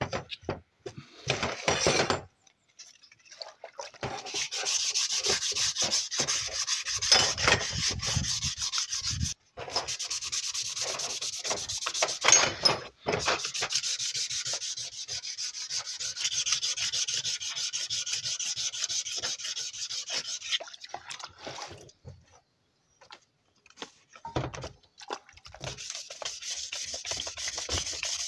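Sandpaper being rubbed by hand over metal BMX parts in quick back-and-forth strokes, wet sanding to strip the old finish. The scraping stops briefly a few times and lulls for a couple of seconds after about twenty seconds.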